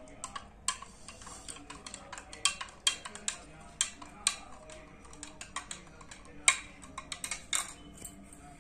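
Metal spoon clinking against the inside of a glass tumbler while stirring turmeric water, in quick irregular ticks several times a second.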